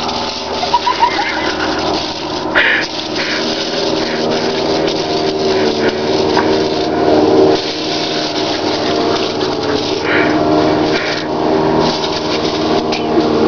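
Water hissing from a garden hose spray nozzle as a dog snaps at the jet, over a steady mechanical hum. A few short louder bursts come about two and a half seconds in and again around ten to eleven seconds.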